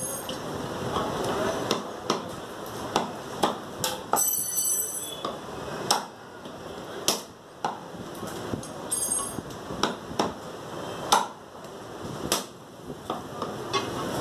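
Butcher's cleaver chopping mutton on a wooden chopping block: sharp, irregular chops, some in quick runs, some after short pauses. A brief high ringing ping sounds twice, about four and nine seconds in.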